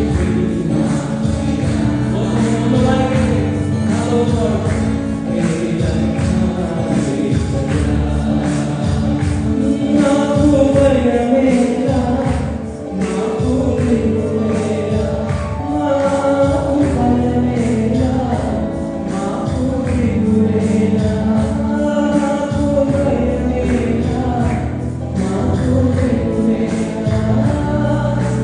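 A gospel song: a group of voices singing together over instrumental backing with a steady beat.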